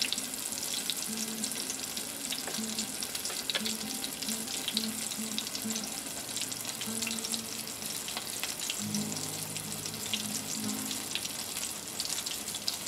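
Battered chicken deep-frying in a pot of hot oil: a steady sizzle with constant fine crackling.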